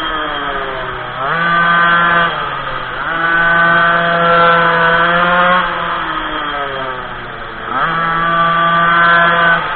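Minimoto's small two-stroke engine with the throttle opened and closed as the bike laps. It revs up sharply three times and holds there, about a second in, from about three to nearly six seconds, and from about eight seconds until just before the end, with the pitch sliding down between each burst.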